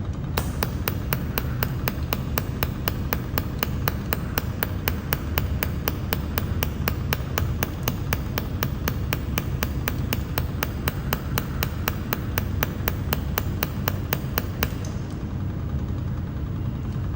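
A pulsed 300 W mold laser welder firing a steady train of sharp clicks, about five a second, one per laser pulse as it welds. The clicks stop about 15 seconds in, leaving a steady low hum underneath.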